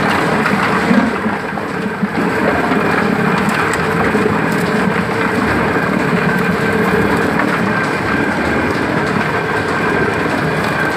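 Rotary coconut oil mill crushing coconut pieces in its steel bowl: a steady grinding and churning rumble from the turning pestle and scraper, with a faint steady hum.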